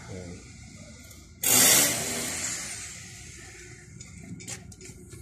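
A sudden loud hiss about a second and a half in, fading away over a second or so, followed by faint scattered clicks.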